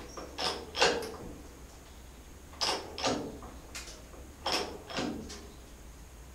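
Hydraulic bottle jack being pumped to force a twisted Land Rover Series 3 chassis straight, giving a series of short creaks, mostly in pairs about two seconds apart. The creaking comes from the chassis and jack under load at the problem area being corrected.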